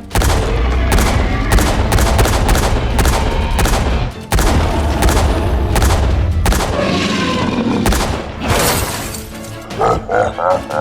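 Music mixed with rapid bangs and deep booms, like gunfire and explosion sound effects. The booms are heaviest in the first six seconds and stop briefly about four seconds in.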